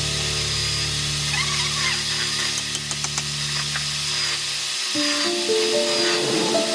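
Background music: a sustained low chord that changes about five seconds in to a sequence of stepped notes.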